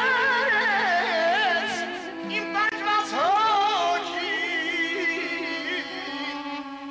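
Armenian folk music: an ornamented, wavering melody on wind instruments over a steady held drone note, which drops to a lower pitch about two seconds in.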